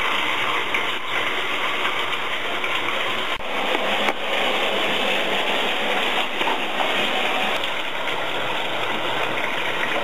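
Shower running: a steady spray of water from the shower head.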